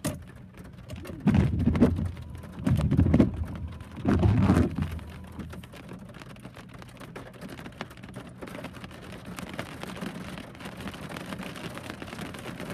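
Heavy rain falling, an even hiss with scattered drop ticks. Three loud, low, rumbling bursts come one after another in the first five seconds, then the rain goes on steadily.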